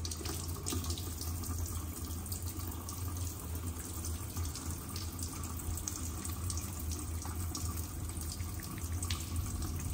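Kitchen faucet running in a steady stream into a stainless steel sink, water splashing over hands being rinsed under it, with a steady low hum underneath.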